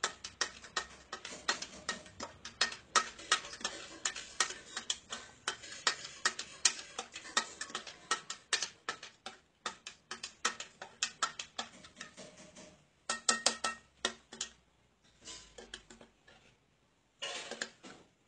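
A spoon stirring in a drinking glass of water, clinking rapidly against the glass to dissolve a piece of soap. The clinking runs steadily for about twelve seconds, then comes in two short bursts near the end.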